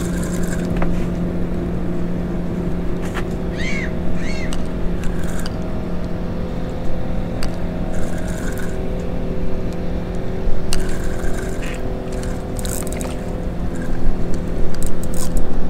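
A small boat's outboard motor idling steadily, with scattered light clicks and two short rising chirps about four seconds in.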